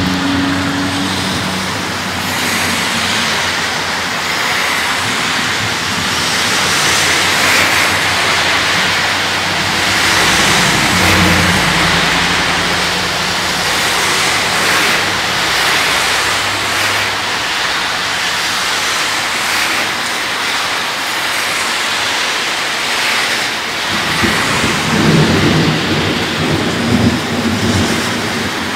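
Thunderstorm: heavy rain falling steadily, with low rolls of thunder rumbling a few times, the longest near the end.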